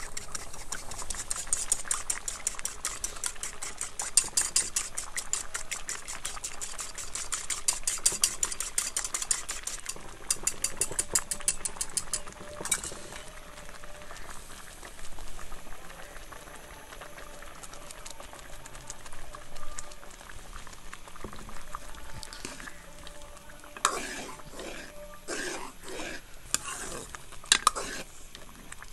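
Wire whisk beating a raw egg in a clay bowl: rapid, rhythmic clicking of the wires against the bowl, which stops about twelve seconds in. Near the end, a metal ladle stirring thick soup in a metal pot, with knocks and scrapes against the pot.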